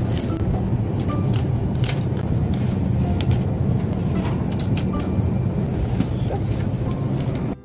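Steady low rumble with scattered light clicks and rustles, broken by a brief dropout near the end.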